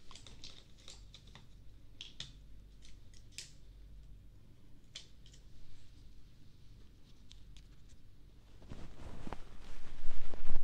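Thin ear-cleaning sticks scratching and tapping at the silicone ears of a binaural microphone, as scattered faint clicks and scrapes. About nine seconds in, a much louder, rapid fluttering rub starts and builds up: the fast back-and-forth 'helicopter' ear-cleaning motion starting up.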